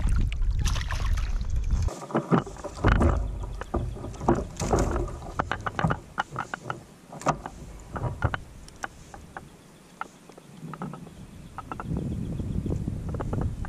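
Irregular knocks, clicks and rustles of a smallmouth bass and fishing tackle being handled in a plastic sit-on-top kayak while the lure is worked out of the fish's mouth. Wind rumbles on the microphone at the start and again near the end.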